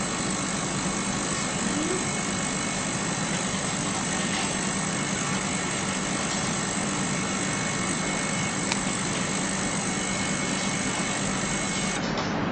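Digital ultrasonic cleaner running with a CD in its water-filled stainless steel tank: a steady buzz with a thin high whine over it, the sound of the transducer driving cavitation in the water.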